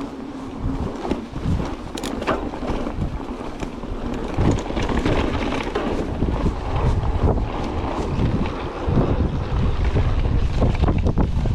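Wind buffeting the microphone over the rumble of a mountain bike rolling over a rough, rocky trail, with scattered sharp clicks and rattles; it gets louder about four seconds in.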